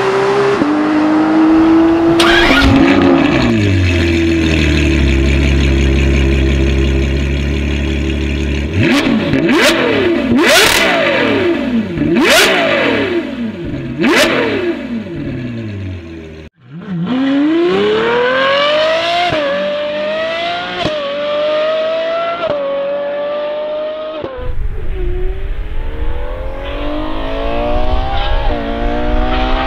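Naturally aspirated flat-six of a Porsche 911 GT3 RS at high revs, breaking off about two seconds in. Then the 6.5-litre naturally aspirated V12 of a Ferrari 812 Superfast settles to a low idle and is revved up and down several times in quick succession. After a brief break it accelerates hard, its pitch climbing in steps through several upshifts.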